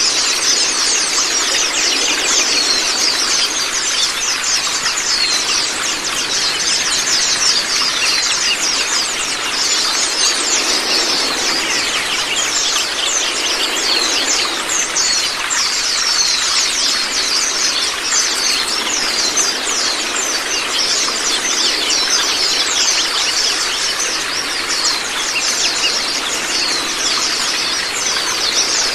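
White-eyes (Zosterops) singing and chirping without pause in rapid, high, down-slurred notes, several birds at once, over a steady rush of running water.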